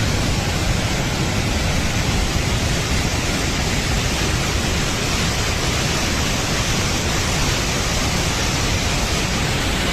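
Fast-flowing floodwater rushing, a loud steady rush without breaks.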